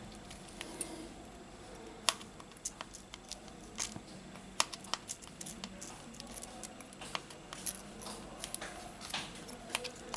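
Scattered small clicks and scrapes of a metal pry tool worked under the edge of a Samsung Galaxy A70's battery to lift it off its adhesive tape.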